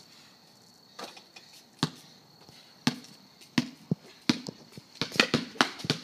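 A basketball being dribbled on hard ground. The bounces come about a second apart at first, then quicker and closer together in the last two seconds.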